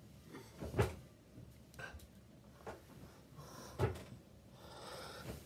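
A few dull knocks and thumps, two louder ones about three seconds apart, followed by soft rustling near the end.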